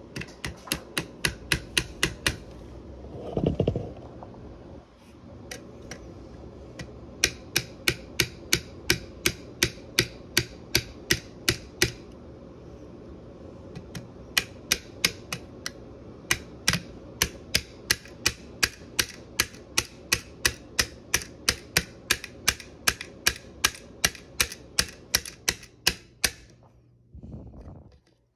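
Small brass-headed hammer tapping a pin into a Taurus TH9 pistol frame. The taps are light, even and about three a second, in runs broken by short pauses a few seconds in and about halfway through, with a brief rustle of handling about three seconds in.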